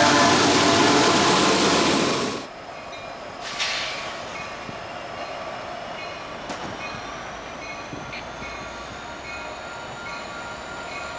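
Union Pacific freight train passing close by: loud, steady rushing wheel and rail noise that cuts off abruptly about two and a half seconds in. Then a much quieter, distant rumble of diesel locomotives approaching, with a faint high chirp repeating at an even pace.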